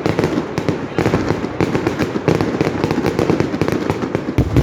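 Fireworks going off in a dense, rapid barrage of bangs and crackles, with a heavier boom near the end.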